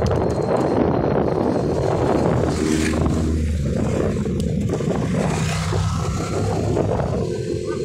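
Steady wind rush on the microphone of a bicycle-mounted camera at riding speed, with motorcycles and a car passing the other way, their engines heard rising and fading near the middle.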